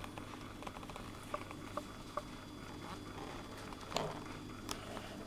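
Low steady hum with faint scattered clicks and taps, and a louder knock about four seconds in.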